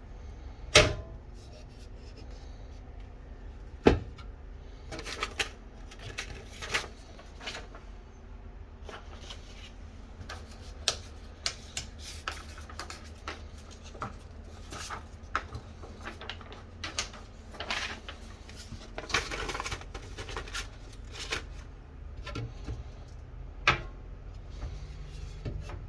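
Cabinet doors and latches in a travel trailer's kitchen being opened and shut: a string of clicks and knocks, the two sharpest about one and four seconds in, over a low steady hum.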